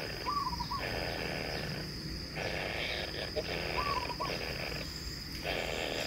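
Kingfisher nestlings giving repeated harsh, rasping begging calls, each lasting about half a second to a second, with a few short whistled notes between them.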